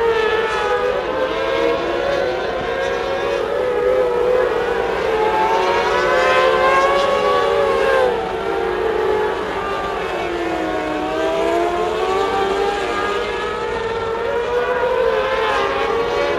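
Several mini sprint race cars running laps on a dirt oval, their overlapping engine notes rising and falling in pitch through the straights and turns. The sound is loudest about halfway through, as two cars pass close by, then drops a little.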